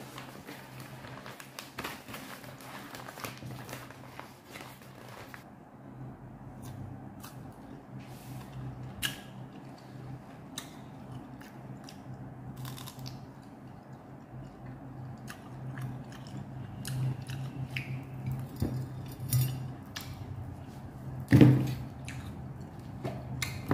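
A paper bag rustles as it is opened, then come crisp bites and chewing of mango slices, with scattered crunches over a steady low hum. A louder knock comes near the end.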